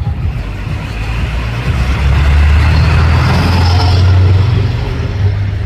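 A motor vehicle driving past, its low engine rumble and tyre hiss swelling to a peak about three to four seconds in, then fading.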